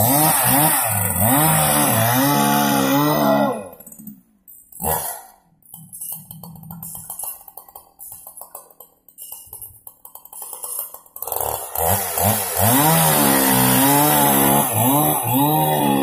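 Husqvarna chainsaw cross-cutting a hard log, its engine speed rising and falling as the chain works through the wood. About four seconds in it drops away to a much quieter, uneven stretch, then comes back to full cutting revs about eleven seconds in.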